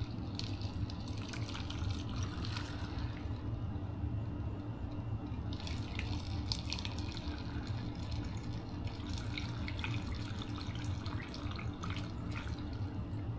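Pickling brine poured from a container into a jar of cucumbers: liquid splashing and trickling in several spells, with short breaks between.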